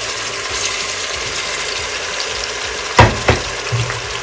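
Chopped onion sizzling in hot oil in a steel pot, a steady hiss, with two sharp knocks about three seconds in.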